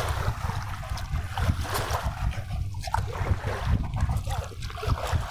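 Wind buffeting the microphone in an uneven low rumble, over a faint wash of river water.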